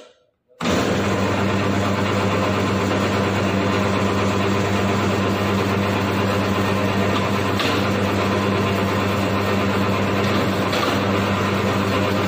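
Electric wire stripping machine running, slitting the PVC insulation off thick copper cable: a loud, steady motor hum and blade noise that starts abruptly about half a second in and dies away at the very end.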